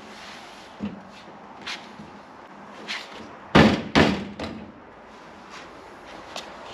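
A hand striking a new door panel against a VW Beetle's steel door to seat its clips: a few light knocks, then two loud thumps about halfway through and a softer one just after.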